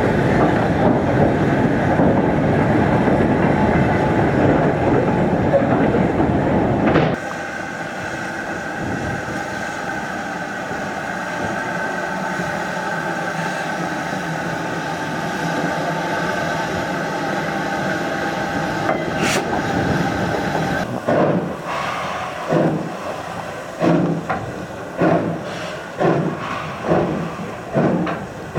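Steam train running loudly for the first seven seconds, then an abrupt cut to quieter steady running. Near the end come a steam locomotive's exhaust chuffs, about one and a half a second and slowly quickening, as it works harder.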